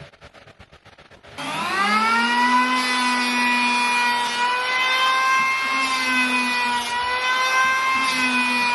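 Handheld wood router switching on about a second and a half in: its motor whine rises quickly in pitch, then runs steadily with slight dips in pitch as it cuts.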